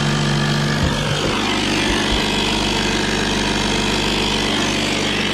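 Air compressor built into a Duracell portable jump-starter pack, switched on by accident, running with a loud steady motor hum. Its tone shifts about a second in, then it keeps running evenly.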